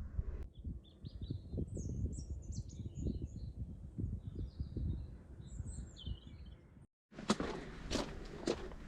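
Small birds chirping and twittering in short high calls over low thumps. About seven seconds in, the sound cuts out briefly, then footsteps crunch on a dry trail.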